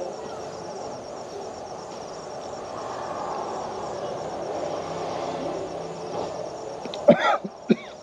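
A man coughs a few times in quick succession about seven seconds in, a reaction to the spicy food he has just tasted. Insects chirr steadily in the background.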